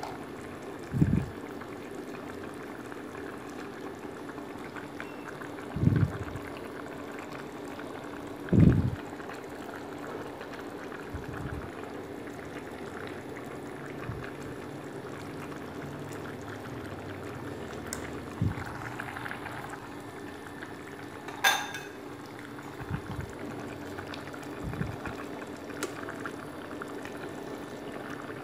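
Pot of braised fish simmering in its broth, a steady bubbling over a low steady hum. A few dull low thumps come in the first nine seconds, with smaller knocks later and one sharp click about twenty-one seconds in.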